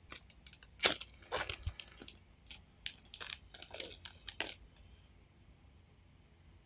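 Small clear plastic bag crinkling as it is handled, in irregular sharp bursts for about five seconds, then stopping.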